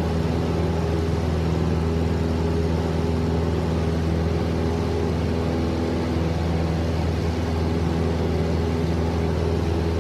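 Single-engine Cessna's piston engine and propeller heard from inside the cabin, running steadily at takeoff power, a low, even drone with slight shifts in pitch.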